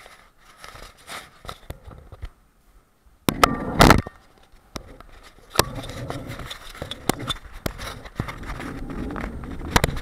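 Bicycle riding on a paved street, heard through a bike-mounted camera: scattered clicks and rattles from the bike and mount, with a loud rattling burst about three and a half seconds in. From a little past halfway, a steady rolling rumble with frequent sharp clicks.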